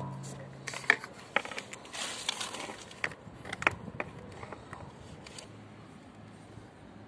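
White plastic cable trunking and coaxial cables being handled: a few sharp knocks and clicks, the loudest about a second in, and a short rustling scrape about two seconds in, then it goes quieter.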